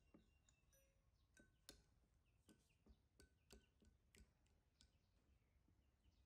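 Metal spoon stirring porridge in a ceramic bowl: faint, scattered clinks and light scrapes, some leaving a short ring.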